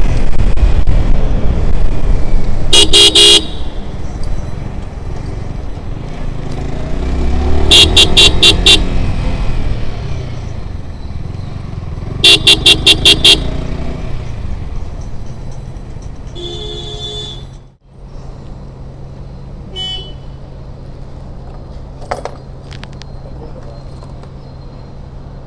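Motorcycle riding in traffic with loud engine and wind noise and the engine pitch rising and falling, while a horn sounds in three quick series of short toots. Shortly after a fainter set of toots, the loud riding noise drops away suddenly, leaving a steady low hum.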